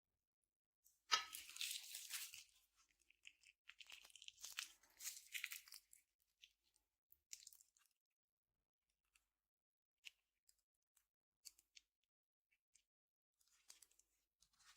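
Slime being squeezed and stretched by hand: a dense run of sticky crackling and clicking from about a second in until about six seconds, then scattered single clicks and pops.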